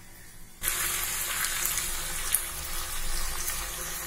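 Breaded vegetable lollipops deep-frying in hot oil in a kadai: the oil sizzles and bubbles steadily, with scattered crackles. The sizzle starts suddenly about half a second in.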